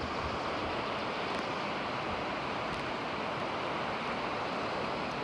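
Steady rushing of churning whitewater in a river rapid.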